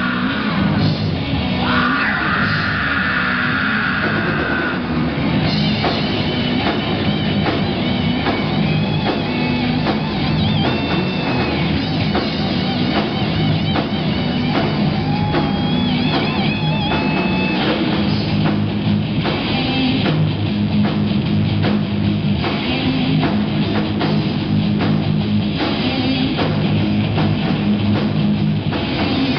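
Heavy metal band playing live: distorted electric guitars, bass guitar and drum kit at a steady driving beat. A high note is held for about three seconds near the start.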